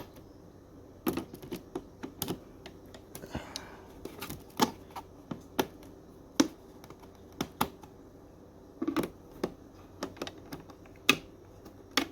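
Irregular sharp clicks and taps of plastic clock-case parts and screws being handled as the alarm clock's case is screwed back together.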